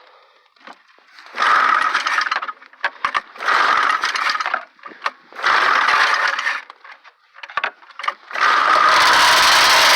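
Ski-Doo Blizzard 9700 snowmobile's twin-carburettor two-stroke engine being pull-started on choke: three pulls of the recoil starter, each a second-long burst of the engine turning over, then about eight seconds in it catches and keeps running steadily and loud through its twin pipes.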